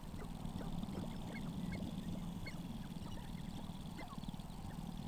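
Sharp-tailed grouse calling on a lek: many short clucks and quick rising chirps scattered throughout, over a continuous low hum.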